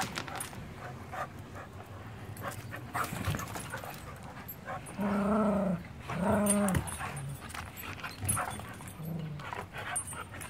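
Puppies and dogs greeting: two drawn-out whines, each under a second, about five and six seconds in, over scattered clicks and scuffles.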